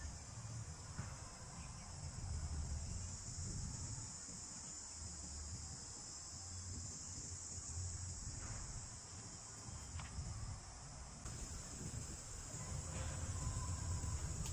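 Steady, high-pitched insect chorus droning without a break, over a low uneven rumble on the microphone.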